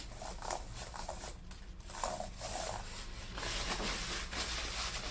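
Rubbing and scrubbing on a laptop keyboard as liquid cleaner is worked over the keys, a soft rustling scrape that gets brighter about three seconds in.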